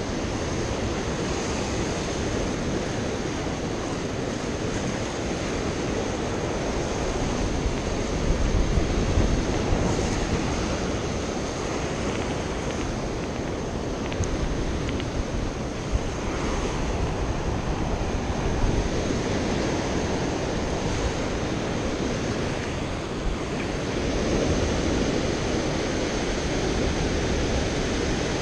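Surf washing and breaking against a rocky shoreline and a concrete breakwater, a steady rushing noise, with wind buffeting the microphone in gusts.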